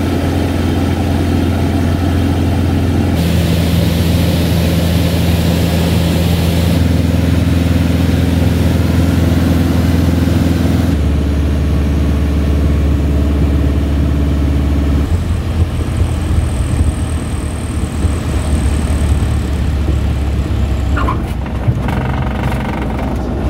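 Single-engine light aircraft's piston engine and propeller droning steadily inside the cabin. The pitch of the drone jumps abruptly several times, every few seconds, as spliced segments follow one another.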